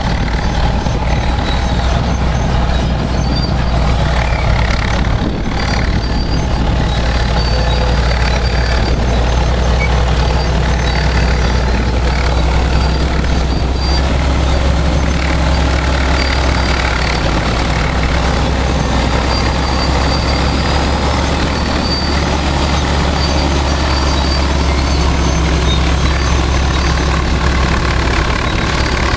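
Heavy Caterpillar diesel engines of a 630B scraper and D7E pusher dozer running steadily under load, a constant deep drone with a broad rushing noise over it, likely wind on the microphone.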